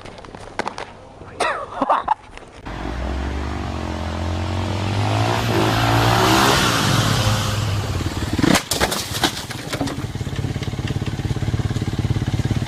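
An engine running, rising and falling in pitch as it revs, with a few sharp clicks along the way.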